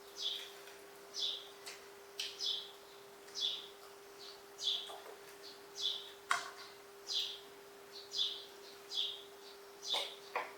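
High, short chirps that slide downward, repeated roughly every half second to a second, over a steady low hum.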